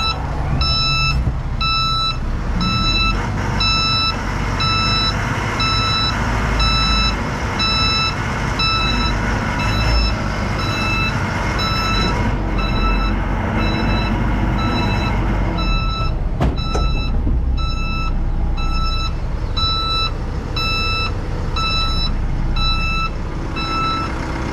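Backhoe loader's reverse alarm beeping steadily, about three beeps every two seconds, over its diesel engine running. A single sharp knock sounds about sixteen seconds in.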